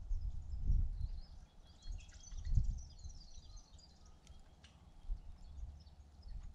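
Small birds chirping and twittering in quick, high, down-slurred notes, busiest in the first half. Low gusts of wind buffet the microphone now and then.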